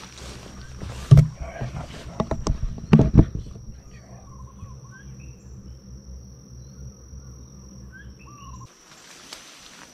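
Footsteps pushing through dense brush, with rustling and a few sharp knocks in the first few seconds, then steadier ground over a thin, high, steady insect drone and a few faint bird chirps.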